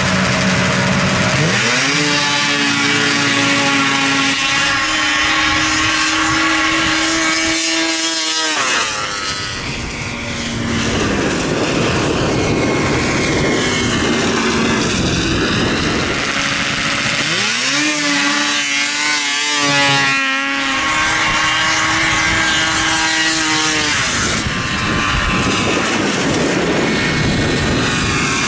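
Snowmobile engines launching off the drag-race start line: the pitch climbs quickly and holds high at full throttle for several seconds, then falls away as the sled races off. This happens twice, about a second in and again a little past the middle.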